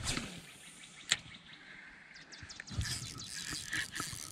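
A spinning rod cast and retrieve: a swish as the lure is cast at the start, a sharp click about a second in, then the spinning reel being wound with a fine, rapid ticking from about halfway on.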